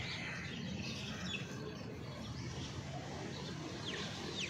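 Birds chirping in the background, a few short high falling chirps, over a steady low background hum.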